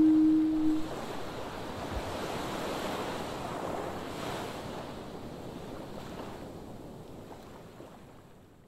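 A steady held note ends about a second in. Sea surf and wind noise follow and fade out slowly to silence.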